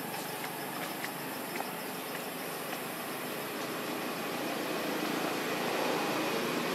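Steady background noise, an even engine-like rumble with no clear pitch, swelling a little in the last couple of seconds; a few faint ticks in the first second or two.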